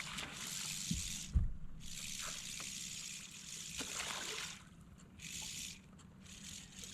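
Water splashing and dribbling in bursts as a hooked smallmouth bass is fought at the surface, with a couple of low thumps about a second in.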